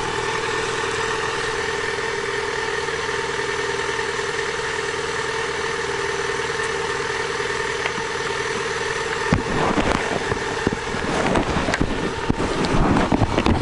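Motorcycle engine idling steadily. About nine seconds in, rumbling, gusty noise and knocks come in over it.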